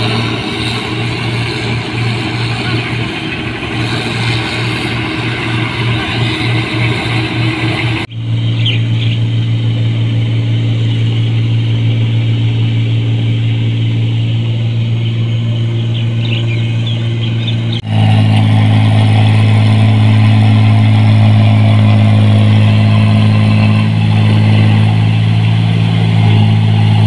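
Diesel engines of New Holland rice combine harvesters running steadily under load while harvesting, with a strong low hum. The sound changes abruptly twice, about 8 and 18 seconds in, and is loudest and steadiest in the last part.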